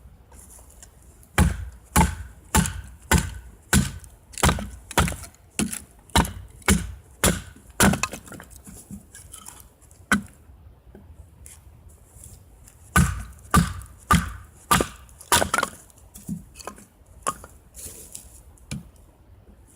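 Firewood being chopped: sharp, woody blows about two a second, a pause of a few seconds, then another run of blows.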